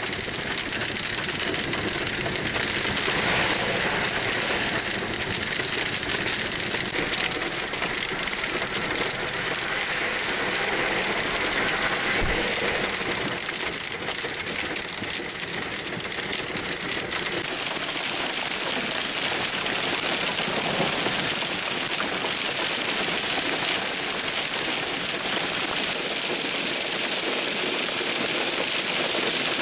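Hail pelting a car's roof and windshield, heard from inside the car: a dense, steady clatter of countless small impacts.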